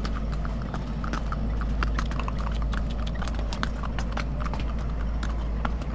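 A horse's hooves clip-clopping on a rocky, gravelly dirt track, many irregular sharp clicks of hoof on stone, over a steady low rumble.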